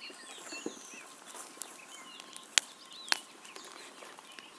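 Bonfire crackling: scattered sharp cracks and pops, the loudest two a little past halfway, with birds chirping in the background.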